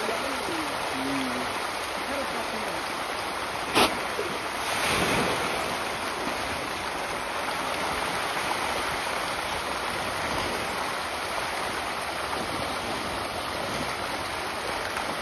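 A large school of fish splashing and churning at the surface of a pond as they feed, a steady rushing splash. A single sharp click comes about four seconds in, followed by a brief louder surge of splashing.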